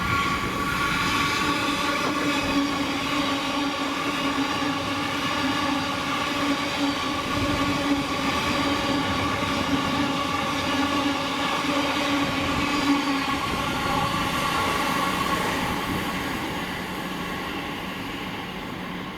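A train running past at close range, a steady whine of several tones over the rumble of the wheels on the rails. It fades away over the last few seconds.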